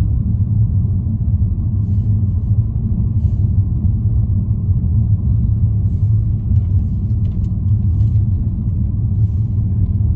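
Steady low rumble of a moving vehicle, with a few faint clicks through it.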